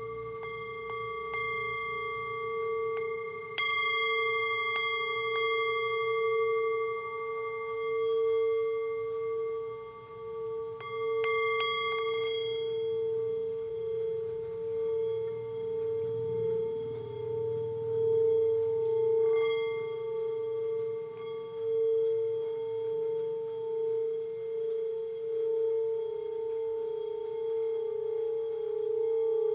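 Sustained ringing drone with several overtones, held on one pitch and slowly swelling and fading in loudness; a few faint clicks sound in the first twelve seconds.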